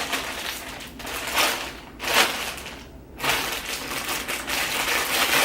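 Packaging bag crinkling as a hair dryer is handled and pulled out of it: a couple of short rustles, then more continuous crinkling in the second half.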